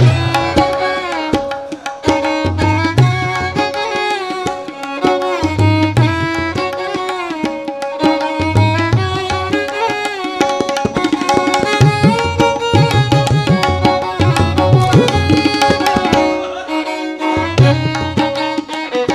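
Tabla playing a steady rhythm, its deep bass-drum strokes coming in clusters, under a continuous sliding melodic line, as accompaniment to a naat.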